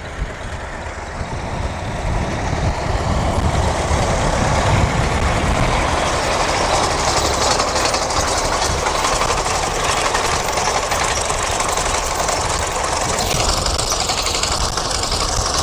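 Tractor with a hay mower running through grass as it draws close, a steady mechanical clatter mixed with wind rumbling on the microphone. It grows louder over the first few seconds, then holds steady.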